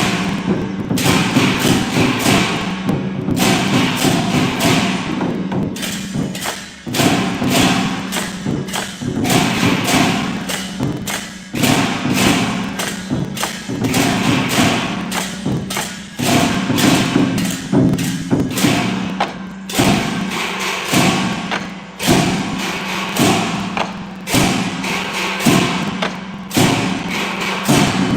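Rapid, uneven knocking and thumping, several strikes a second, over background music.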